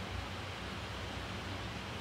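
Steady low hiss with a faint hum underneath: room tone, with no distinct sound standing out.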